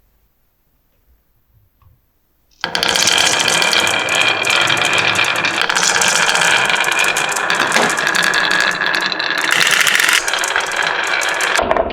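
Marbles clattering down a marble run as a dense, rapid run of clicks and rattles, starting suddenly about two and a half seconds in after near silence.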